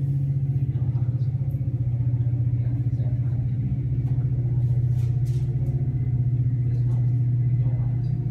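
Diesel locomotive of a commuter train pulling out, a steady low engine drone with a fast throb.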